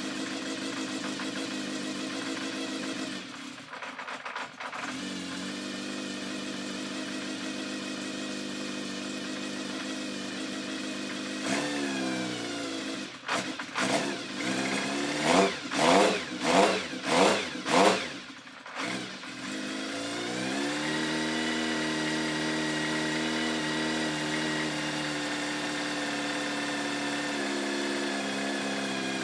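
Kawasaki Zephyr 750 air-cooled inline-four idling steadily. About halfway through it is blipped several times in quick succession, about five short revs, then it settles back to a steady idle.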